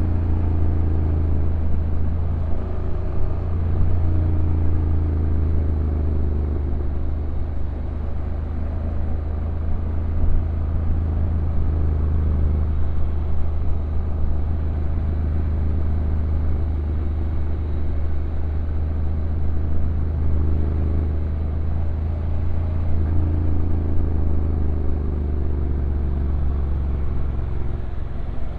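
Honda NC750X DCT's parallel-twin engine running under a downhill ride, with a steady low rumble from the engine and road; its pitch falls and rises a few times as the revs change with throttle and the automatic gearbox.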